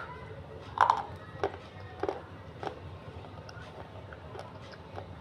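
A thin white crescent of eating clay snapped off in a bite and crunched between the teeth: a sharp crack at the start, the loudest crunch just under a second in, then a few weaker crunches about every half second that fade as it is chewed.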